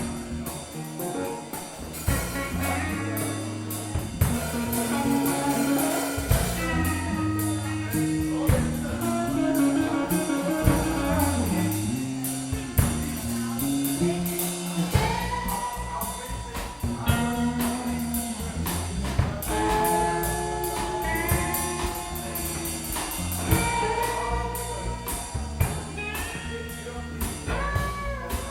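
A live band playing a blues-jazz groove: drum kit, a stepping bass line and a lead instrument playing bending melodic phrases.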